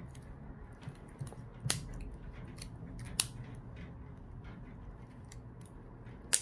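Sharp, scattered clicks and small taps as a Samsung A71's metal middle frame is pressed down and clips into place on the phone, the loudest click coming near the end.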